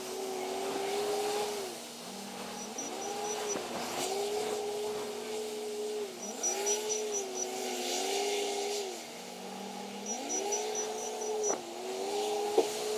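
Large wheel loader's diesel engine repeatedly revving up to a steady high pitch, holding for a second or two, then dropping back, over and over as the machine works. A single sharp knock sounds near the end.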